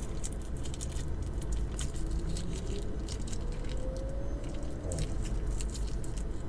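Close-miked eating: wet chewing and biting with many small mouth clicks.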